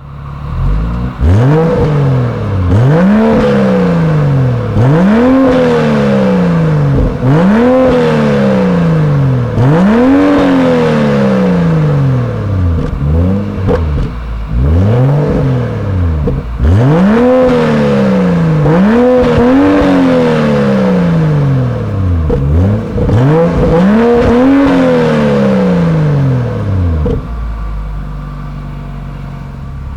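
BMW M235i engine being revved repeatedly, about ten revs that each climb in pitch and fall back, then settling to idle near the end.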